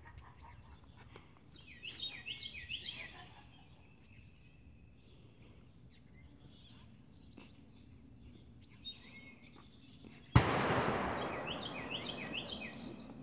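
Small birds chirping in two short clusters of quick rising and falling notes over a faint outdoor background. About ten seconds in, a sudden loud rush of noise starts and fades away over a couple of seconds.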